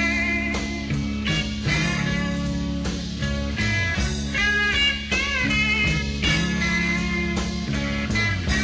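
Live psychedelic rock band playing an instrumental passage: electric lead guitar bending and sliding notes over steady bass and drums.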